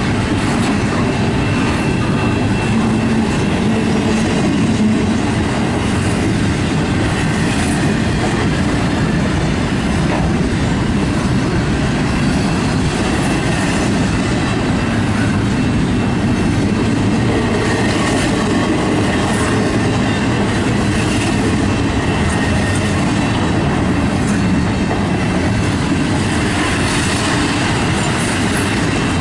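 Double-stack intermodal container train rolling past: the steady rumble of loaded well cars, with wheels clacking over the rail joints.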